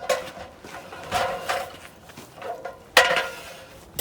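Several metallic clanks and rattles, each with a short ringing tone, the loudest about three seconds in.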